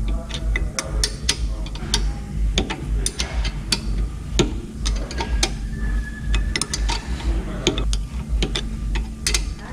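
Hand ratchet clicking in short, irregular runs as bolts on a car's brake caliper are turned, with tools clinking on metal, over a low steady rumble.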